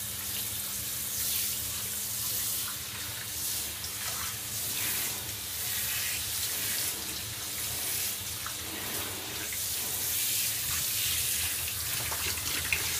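Water spraying from a handheld shower head onto a wet boxer dog's neck and chest in a glass shower stall: a steady hiss that swells and eases as the spray moves.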